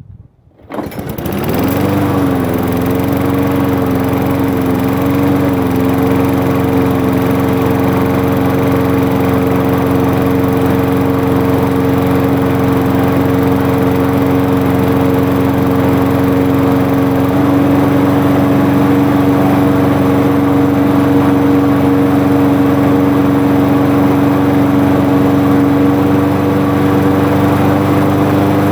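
Walk-behind lawn mower's small engine, newly swapped onto a Craftsman self-propelled mower, firing on starting fluid about a second in. Its speed wavers for a few seconds, then it settles into a steady run with a slight rise in speed partway through. It is running with no air filter fitted.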